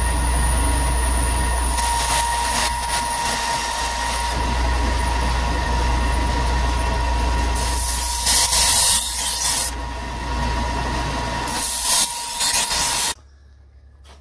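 Ryobi bench belt sander running with a steady whine while the steel knife blade is ground against the belt. The grinding grows louder and hissier twice, in the middle and near the end, then cuts off suddenly about a second before the end.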